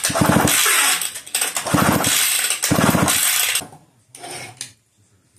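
McCulloch Pro Mac 700 two-stroke chainsaw, stored unused for seven years, being pull-started: three hard yanks on the recoil starter crank the engine over with a fast chugging, and it does not run on. A shorter, softer rattle follows about a second later.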